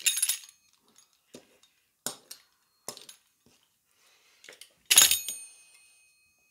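Metal kitchen utensils, a knife and a pizza-cutter wheel, clinking and knocking against the table as they are handled: a sharp clink right at the start, a few lighter knocks, and the loudest clink about five seconds in, ringing briefly.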